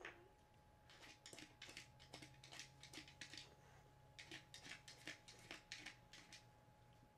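Faint quick scuffs and light clicks as a dog noses at a wooden Nina Ottosson Dog Turbo puzzle, in two runs of a couple of seconds each, with a sharper click at the very start.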